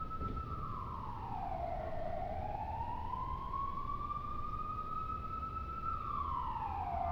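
Siren wailing in a slow sweep. It falls in pitch over about a second and a half, climbs slowly back over about four seconds, then falls again near the end, over a low steady rumble.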